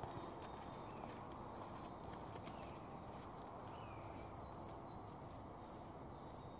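Faint footsteps crunching over dry leaf litter on a forest path, in an irregular walking rhythm. Small birds sing runs of short repeated high notes.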